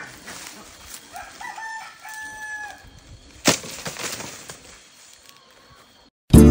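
A rooster crows once, about a second in: a short rising note, then a long held one that drops at the end. A single sharp knock comes about two seconds later, and harp music cuts in at the very end.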